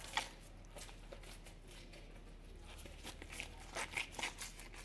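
Faint handling noise of scattered crinkles and clicks, with one sharp click just after the start and a denser run of them near the end.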